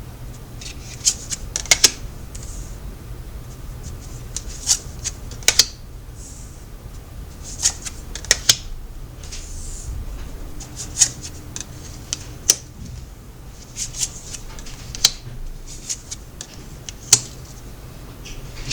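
Tarot cards being shuffled and handled: irregular sharp clicks and short swishes of card on card, with a low steady hum underneath.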